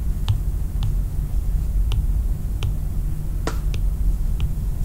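Light, irregular taps on an iPad's glass touchscreen as small shapes are drawn, about seven in all, over a steady low hum.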